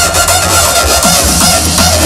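Loud electronic dance music from a festival sound system, with a heavy steady bass and short bending notes repeating over it.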